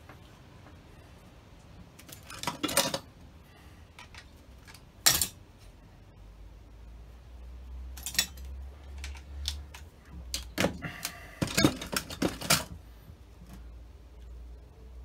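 Scattered clicks and knocks of a handheld rotary tool and small metal carburettor parts being handled on a workbench, with one sharp click about five seconds in and a busier run of clicks near the end.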